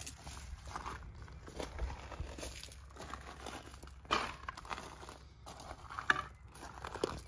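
Irregular footsteps crunching on gravel, with a louder crunch about four seconds in and another about six seconds in, over a faint steady low rumble.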